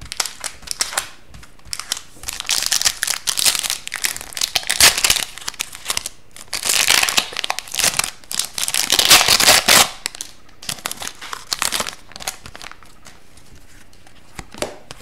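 Foil wrapper of a hockey card pack being torn open and crinkled by hand, the crackling loudest in two long stretches through the first two-thirds. Then lighter clicks as the cards are handled, quieter near the end.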